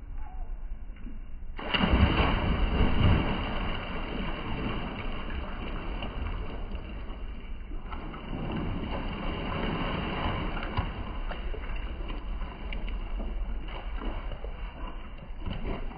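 Outdoor rushing water and wind noise on a phone microphone, a steady hiss with a loud swell about two seconds in.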